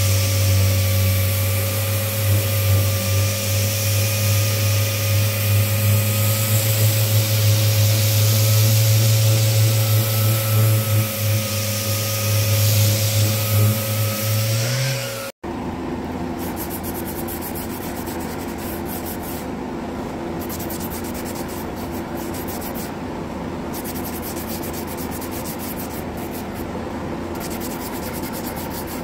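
Random orbital sander running on the end grain of a camphor wood cutting board: a steady hum with a faint wavering whine. About halfway it cuts off suddenly and a smaller detail sander's quieter, even buzz takes over.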